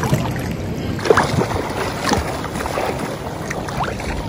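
Water splashing and lapping around a swimmer, an irregular wash of water noise with small scattered splashes.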